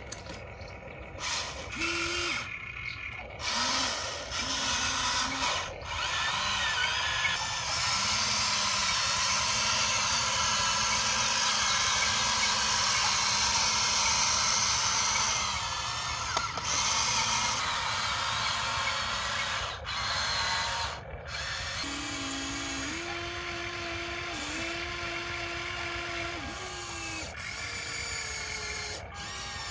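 Small electric motors of a Huina remote-control model excavator whining as the boom, arm and bucket move, in short start-stop runs with one long steady run in the middle.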